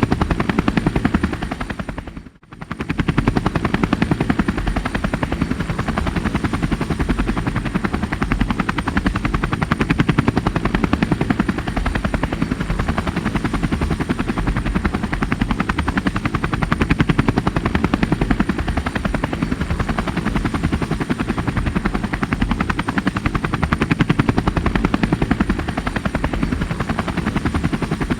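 Rescue helicopter's rotor blades chopping in a rapid, steady beat with a thin high whine over it. The sound dips out for a split second about two seconds in, then carries on unchanged.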